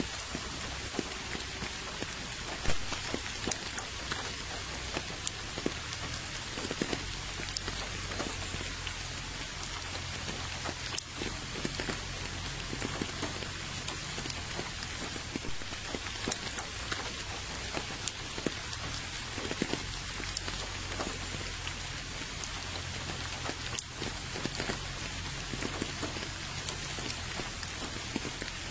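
Steady rain falling into a puddle and onto a stony path: an even hiss with many separate drops ticking on the water.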